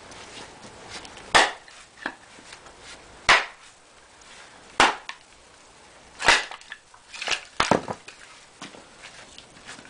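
A splitting axe striking black locust firewood on a chopping block: four sharp cracks about one and a half seconds apart, then a quicker run of knocks near the end as split pieces fall onto the pile.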